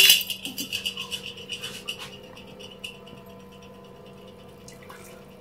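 Pan of vermicelli cooking in jaggery water, sizzling and bubbling with a fine crackle that dies away over about three seconds. A faint steady hum runs underneath.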